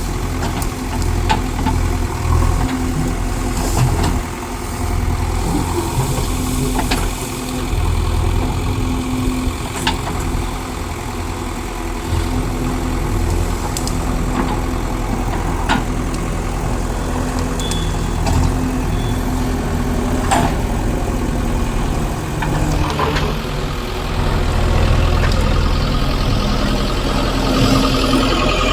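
Heavy diesel engine running steadily, with a few sharp knocks every few seconds.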